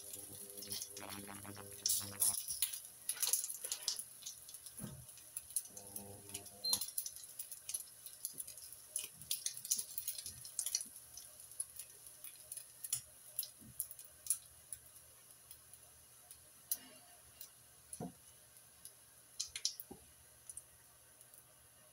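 Bacon sizzling in a frying pan, with a wooden spatula scraping and tapping the pan as the strips are turned and lifted out. The clicks and scrapes are frequent at first and thin out to scattered taps as the pan empties.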